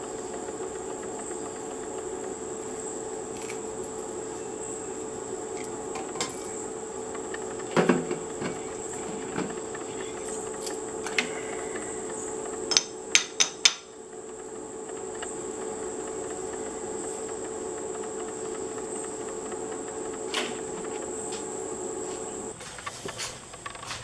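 Hand-stripping copper winding wire from a small microwave-oven motor stator: scattered metallic clicks and knocks from the metal stator and pliers, with a knock about eight seconds in and four sharp clicks in quick succession around the middle. A steady background drone runs underneath and drops out near the end.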